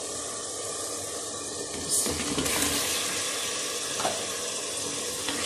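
Onion-tomato masala sizzling in a pressure cooker pot while a wooden spoon stirs it; about two seconds in the sizzling grows louder as raw chicken pieces go into the hot masala, and a short knock sounds about four seconds in.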